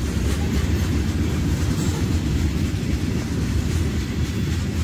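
CSX freight train cars rolling past on the rails, a steady low rumble.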